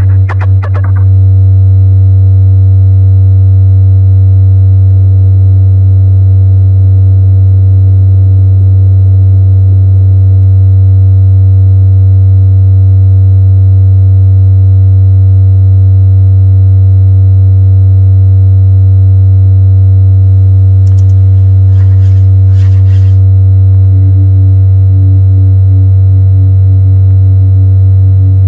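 A loud, steady low electronic drone with fainter steady overtones above it. Brief high crackling comes about two-thirds of the way through, and a second, higher tone joins near the end.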